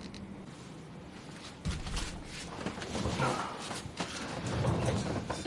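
Irregular clicks, knocks and low thuds of handling noise, starting about two seconds in.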